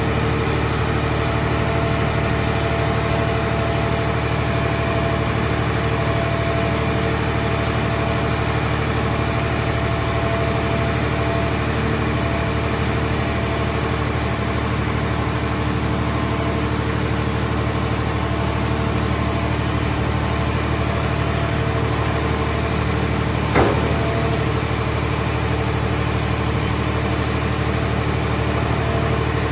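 Power unit of a mobile scrap car shell baler running steadily, a constant engine-like drone, with one short clank about three-quarters of the way through.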